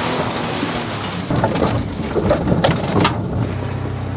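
Pickup truck driving over a rough, rocky mountain track. A rushing noise gives way, about a second in, to a clatter of knocks and crunches from the truck and its tyres on rock and gravel. Near the end it settles into a steady low engine hum.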